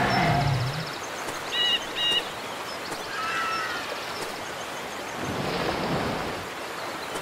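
Ocean surf ambience with bird calls over it: two short, bright chirps about one and a half and two seconds in, then a few warbling calls a little later.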